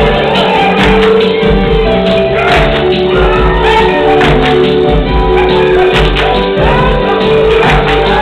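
Music for a Samoan dance, with singing over held pitched notes and sharp percussion strikes.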